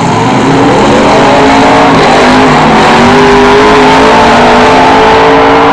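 Demolition derby cars' engines revving loudly, the pitch dipping about two seconds in and then climbing again.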